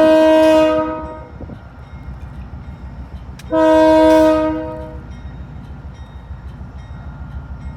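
Union Pacific diesel locomotive's air horn sounding two chord blasts. The first cuts off about a second in; the second starts about three and a half seconds in and lasts about a second and a half. A steady low locomotive rumble runs underneath.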